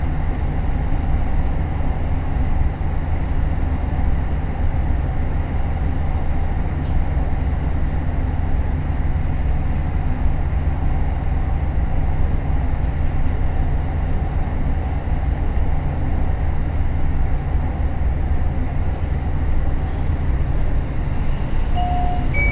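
Steady running noise inside an ET122 diesel railcar: the Komatsu SA6D140HE-2 diesel engine drones steadily along with the wheels on the rails. A brief high tone sounds near the end.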